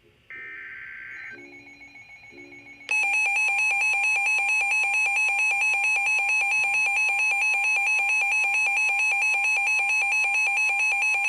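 Reecom R-1630 weather radio receiving an emergency alert: a short buzzy burst of digital alert data near the start, then about three seconds in a loud alert tone that pulses rapidly over a steady tone and holds to the end, announcing an incoming flood warning.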